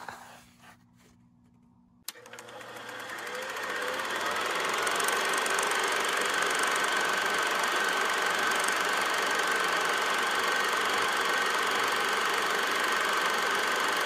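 A few light taps of a hand on a cardboard box, then about two seconds in a steady machine-like whirring noise with a faint high hum starts abruptly, swells over the next couple of seconds and holds level.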